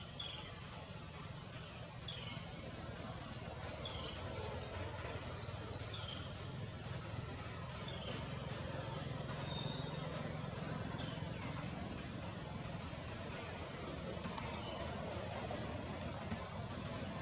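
Small birds chirping, many short quick rising chirps repeated irregularly, over steady low outdoor background noise.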